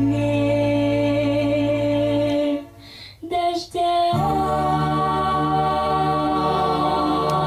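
A young girl singing a slow blues song in long held notes. About two and a half seconds in the sound drops for a moment, with two short notes. A new long note comes in at about four seconds.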